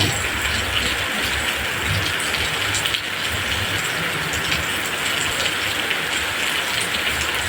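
A loud, steady rushing noise with a low rumble underneath, like heavy rain or running water.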